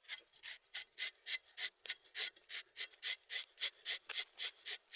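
Rubber-tapping knife shaving bark from a rubber tree in short rasping strokes, about four a second.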